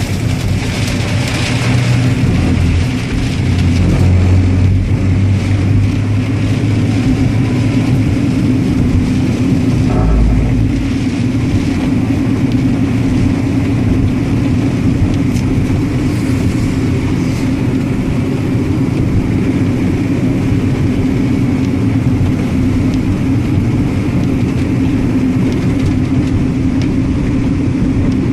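Car driving along: steady engine and road noise.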